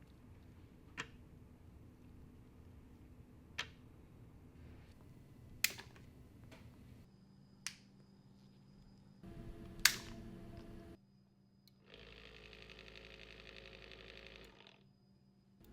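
Laboratory equipment sounds: five sharp, separate clicks about two seconds apart. Then comes a short machine hum with steady tones, and about three seconds of even, steady whirring noise that cuts off suddenly.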